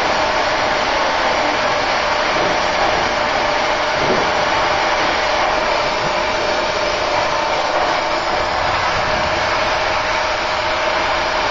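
Oxy-fuel cutting torch hissing steadily as it cuts through steel, with a steady mid-pitched hum underneath.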